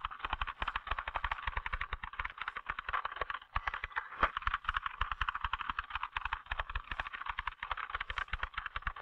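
Typewriter keys struck at top speed by a skilled typist: a fast, even stream of clicks with no pauses between strokes, many each second.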